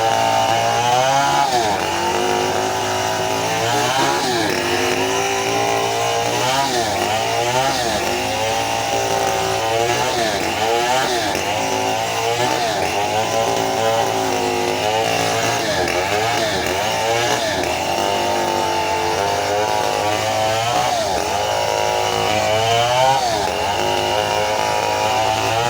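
Stihl 070 two-stroke chainsaw cutting lengthwise through a very old teak log, running at high throttle. Its engine pitch dips and recovers over and over, every second or two, as the chain loads up in the cut.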